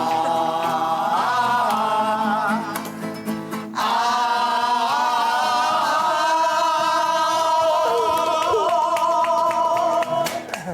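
A song sung to guitar accompaniment, closing on one long held note from about four seconds in until near the end.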